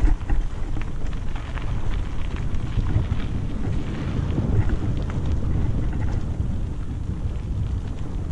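Wind rumbling on an action camera's microphone while riding a bicycle down a dirt forest trail, with tyre noise and scattered small knocks and rattles over bumps.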